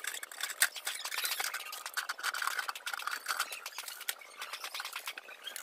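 Hands working on hard plastic and a plastic bag: squeaky rubbing with a dense run of small clicks and crackles.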